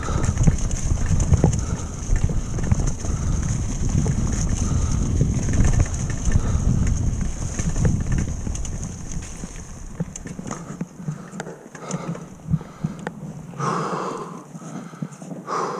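Retro downhill mountain bike rolling fast over a rough, leaf-covered dirt trail: tyre rumble, chain and frame rattle and wind on the microphone. The rumble fades about ten seconds in as the bike slows. Near the end the rider breathes heavily a few times, panting after the run.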